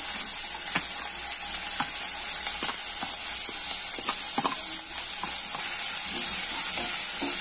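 Chopped onions sizzling steadily in hot oil in a nonstick kadai, with scattered small crackles. A wooden spatula stirs them near the end.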